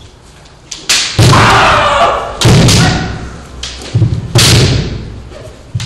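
Kendo sparring: sharp cracks of bamboo shinai strikes and stamping bare feet thudding on the wooden floor, several in quick succession. Three of the strikes are followed by a long, loud kiai shout.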